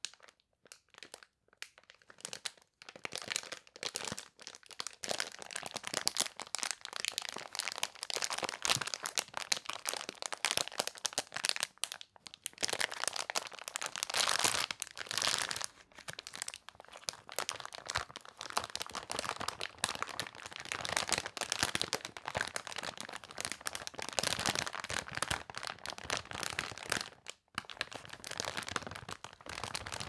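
Plastic film candy bags crinkled and squeezed by hands: a few scattered crackles at first, then dense continuous crinkling from about three seconds in, with a brief pause near the end.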